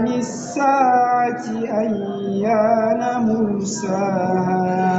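Qur'an recitation: a young man's voice chanting Arabic verses in melodic tajwid style, with long held notes that waver and slide in pitch and short breaks between phrases.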